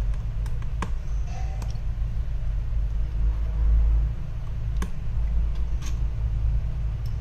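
A few light clicks and taps from handling an opened smartphone and a small precision screwdriver, over a steady low background rumble that swells briefly about halfway through.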